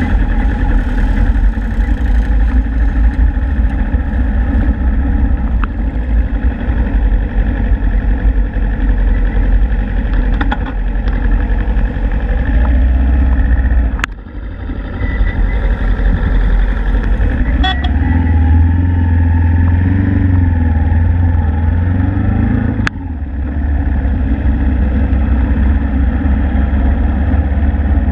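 Suzuki Inazuma GW250's parallel-twin engine running at low speed in street traffic. Its pitch wavers up and down with the throttle. Twice, about halfway and later on, a sharp click comes with a brief dip in the engine sound.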